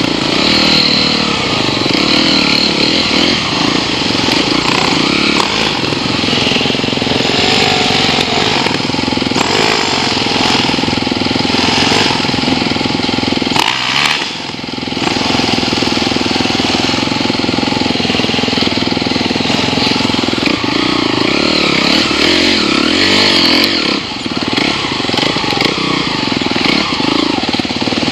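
Enduro dirt-bike engines running close up on a rough trail, the note rising and falling with the throttle. There is a brief drop in loudness about halfway through.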